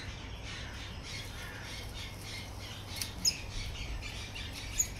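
Birds squawking and chirping over and over, with two sharp clicks of hand pruning shears snipping paco fern stems, one a little past three seconds in and one near the end.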